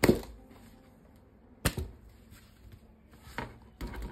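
Sharp clicks and knocks of hard plastic toy-gun parts being handled: a loud click at the start, another a little before the middle, and a few lighter ones near the end.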